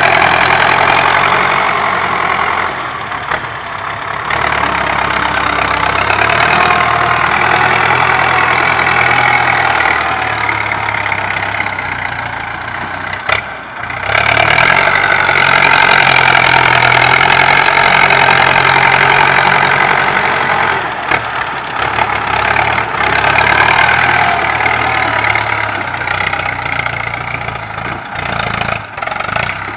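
Farm tractor engine running while the tractor pushes and levels loose soil with its front dozer blade. The engine note rises and falls several times as the load and throttle change.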